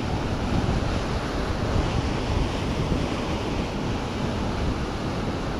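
Steady rush of falling and flowing water from a waterfall and creek, an even roar without breaks.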